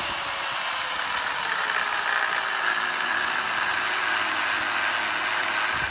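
Milwaukee angle grinder with a thin cutoff wheel cutting into a rusted cast-iron brake drum: a steady whine with the hiss of the wheel biting metal. It is slicing a section out of the drum to get at a brake adjuster star that is rusted solid.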